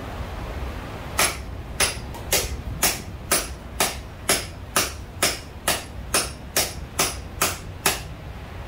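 Hand hammer striking the top of a guillotine tool on an anvil, about fifteen blows at roughly two a second starting about a second in, each with a short high metallic ring. The smith is drawing down the tips of hot steel stock in the tool.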